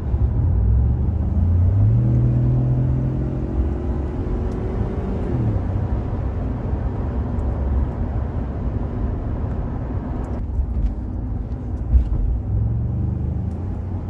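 Ford F-150 3.5-litre twin-turbo V6 EcoBoost accelerating, heard inside the cab, with the synthetic V8-like engine sound of its sound enhancement played through the cab speakers. The engine note rises in pitch over the first two seconds, holds, then falls away about five seconds in, leaving steady engine and road noise.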